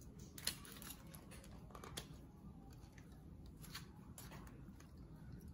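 Faint crinkling and a few sharp clicks of a plastic fork and fingers working at fish on crumpled aluminium foil; the loudest click comes about half a second in.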